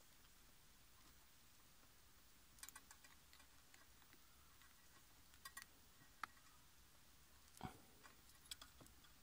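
Faint, scattered small clicks of a metal pick working the pins of a plastic car-stereo wiring connector, about five in all at irregular moments, over near silence.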